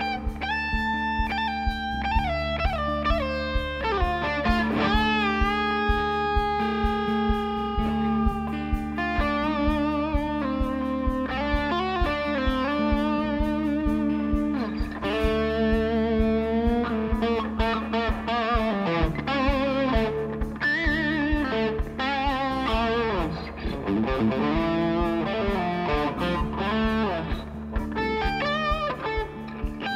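Live rock band with a lead electric guitar, a black single-cutaway model, playing a melodic solo of sustained, bent and vibrato notes over bass and drums.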